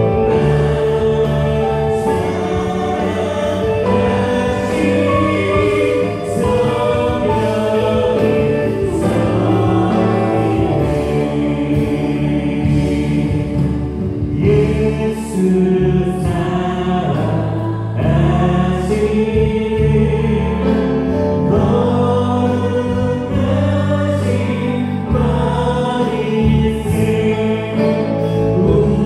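Church praise band playing a worship song live: a group of singers over a Yamaha Montage 8 keyboard, electric bass and drums, with cymbal strokes throughout.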